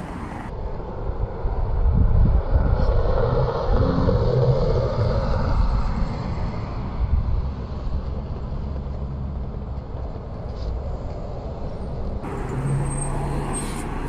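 Red MAN city bus approaching and pulling in to the stop, its engine and tyres rumbling, loudest a few seconds in. Near the end the sound changes abruptly to a steady engine hum heard inside the bus.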